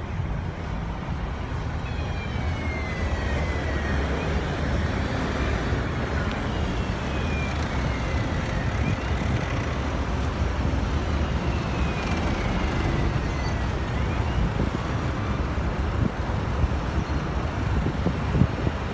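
Road traffic heard from inside a car at an intersection: a steady low rumble of engines and tyres. Three times, about five seconds apart, a faint high whistle falls in pitch.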